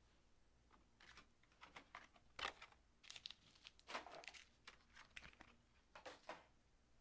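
Packaging of a model locomotive being handled: intermittent crinkling and rustling with light taps and clicks, loudest about two and a half and four seconds in.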